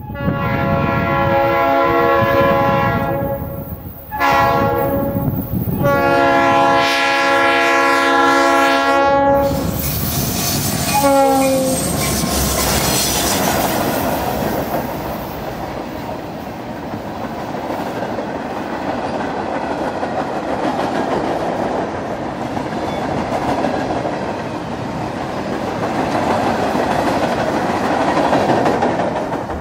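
Freight train locomotive horn sounding several long blasts as the train approaches a grade crossing, with a last brief blast dropping in pitch as the locomotives pass. Then the steady rumble and clickety-clack of freight cars rolling past on jointed-sounding track.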